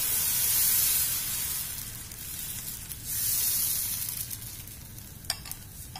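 Wheat-flour and jaggery dosa batter sizzling on a hot pan as it is spread in circles with a ladle. The hiss swells twice, strongest at first, then dies down, with a light click about five seconds in.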